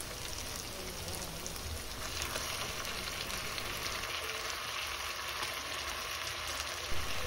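Onion and tomato masala sizzling steadily in hot oil in a clay pot; the sizzle grows a little stronger about two seconds in as raw chicken pieces go into the pan.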